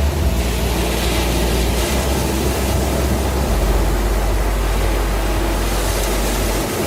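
Ambient instrumental pad music: a steady hissing wash over a deep sustained bass tone that changes note about two seconds in, again a second and a half later, and once more near the end.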